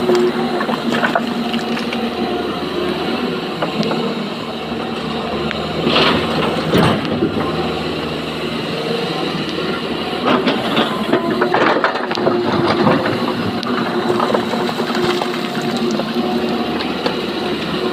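Heavy diesel engine of an excavator running steadily while it loads stone into a dump truck, with scattered clatter and knocks of rock.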